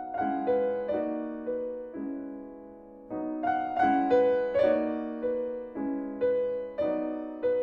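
Solo piano music: a slow, gentle melody of struck notes over chords, each note fading after it is played.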